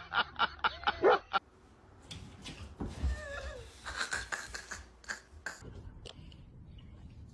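A dog yapping in a fast string of barks, about six a second, that cuts off abruptly after about a second and a half. Then come quieter scattered clicks and knocks, with a short wavering squeak about three seconds in.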